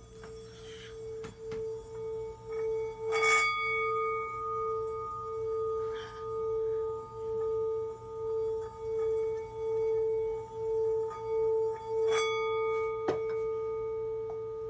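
Singing bowl being rubbed around its rim: one steady ringing tone that swells and fades a little more than once a second, with a few light taps.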